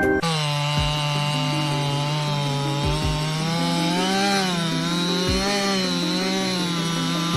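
Chainsaw running at high revs and cutting wood, a steady buzzing note that sags and recovers slightly around the middle as the chain takes load.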